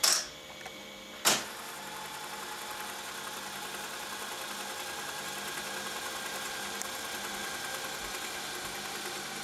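Telex ACC-4000 cassette duplicator starting up: a sharp click at the start and another about a second and a half in as it engages, then the steady whirring hum of its tape transports running as the cassettes are duplicated.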